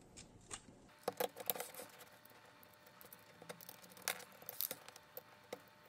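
Light clicks, taps and rustles of hands handling a small 3D-printed plastic robot chassis and driving an M3 screw with a screwdriver, scattered irregularly from about a second in.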